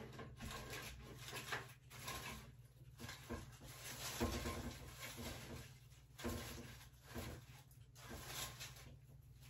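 Plastic artificial fern foliage rustling and brushing against a wall as it is handled and hung, in faint, irregular bursts.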